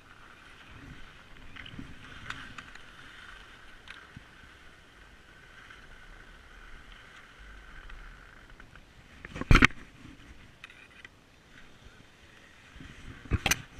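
Skis sliding over packed snow with a faint steady whine; two sharp double knocks, one about halfway through and one near the end.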